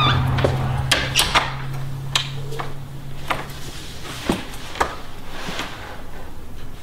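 Wooden interior door and its round knob being handled: a string of sharp clicks and knocks, over a low steady hum that stops about four seconds in.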